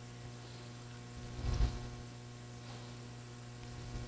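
Steady electrical mains hum from old lecture-recording equipment, with a brief low thump about a second and a half in.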